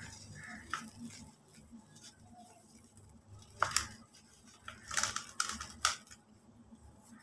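Dry cement and white concrete lumps being crushed by hand into a plastic bucket: crunchy crumbling, with powdery grit pattering down. A few sharp cracks come from about halfway to near the end as chunks snap.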